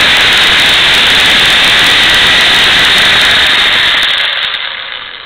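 Chicago Electric 6-amp corded reciprocating saw running at speed with a loud, steady buzz, then released and winding down about four seconds in.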